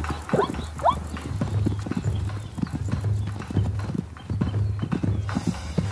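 Zebra hooves striking hard ground in many quick, irregular footfalls, with a few short squealing calls in the first second.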